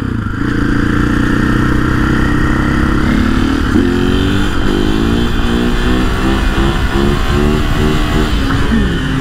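KTM 500 EXC-F's single-cylinder four-stroke engine running and revving, its pitch rising and falling in short repeated steps from about three seconds in.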